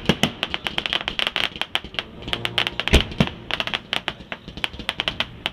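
Aerial fireworks going off close by: a dense run of sharp crackling pops, with a heavier bang at the start and two more about three seconds in.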